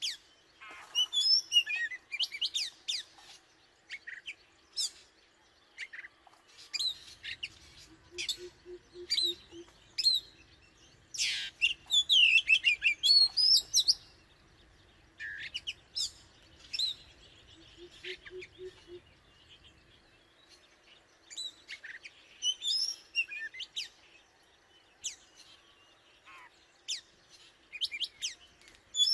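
Oriental magpie-robin singing: varied clear whistles, chirps and quick trills in short phrases separated by pauses.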